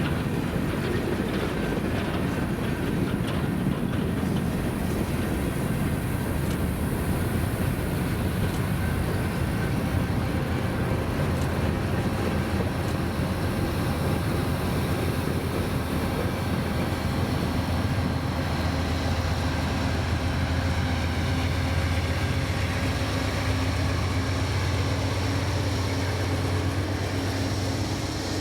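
Freight train rolling past with a steady, continuous rumble.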